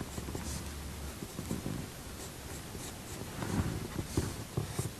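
Coloured pencil scratching softly on drawing paper in quick, irregular short strokes, sketching individual strands of hair.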